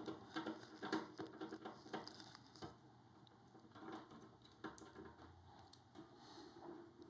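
Faint irregular clicks and rustles of hardware being handled, busiest in the first few seconds, then sparser.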